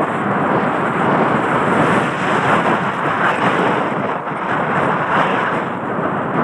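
Loud, steady wind rush and rumble on a helmet-mounted camera's microphone as a mountain bike is ridden fast down a dry dirt trail, with the tyres' rattle on the ground mixed in.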